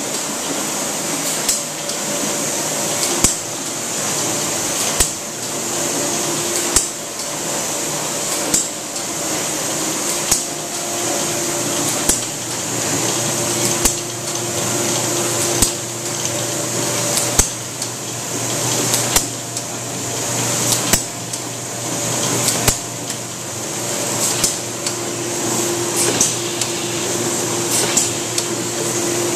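Kirk Rudy mail-handling machine running: a steady whir and hiss, with a sharp clack repeating just under every two seconds and lighter ticks in between.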